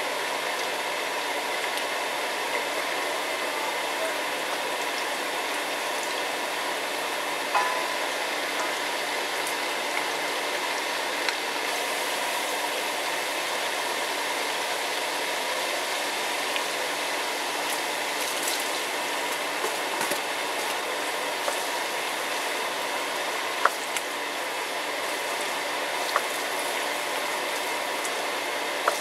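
Butter and vegetable oil sizzling steadily in a wok over high heat, with a few short knocks of a wooden spatula against the pan as it is stirred.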